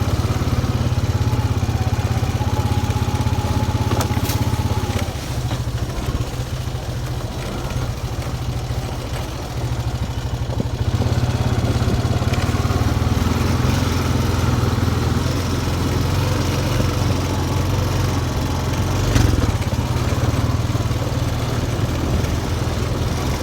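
Small off-road vehicle's engine running steadily while driving over farm ground. It eases off for a few seconds about a fifth of the way in, then picks up again, with a couple of sharp knocks along the way.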